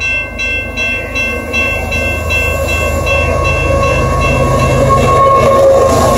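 Crossing bell ringing at about three strikes a second and fading as a Canadian Pacific freight train with two diesel locomotives approaches and passes close by. The locomotives' engine and wheel rumble grows steadily louder, and a steady tone comes in about three seconds in.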